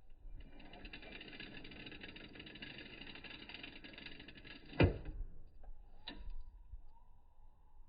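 Rapid mechanical rattling with many fast clicks for about four and a half seconds, ending in one sharp metal clank, then a single click about a second later.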